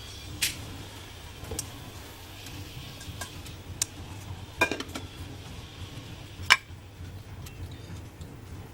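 Kitchenware being handled: a few separate sharp clinks and knocks of utensils and dishes, the loudest about six and a half seconds in, over a low steady hum.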